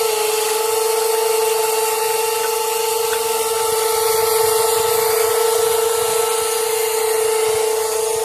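Electric motors of a WLtoys 16800 metal RC excavator running with a steady, even whine.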